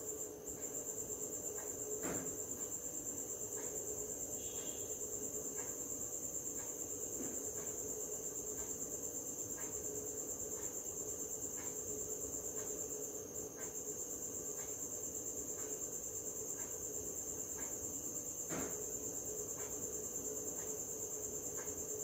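An insect trilling steadily at a high pitch in a fast, even pulse, over a steady low hum. Two soft knocks come through, one about two seconds in and one near the end.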